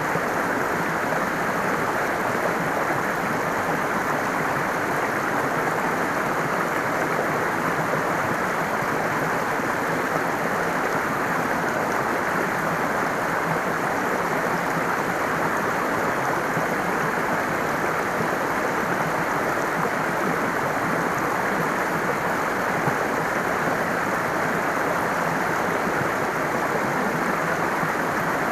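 Stream water flowing with a steady, even rush, strongest in the lower and middle range, and no birdsong standing out.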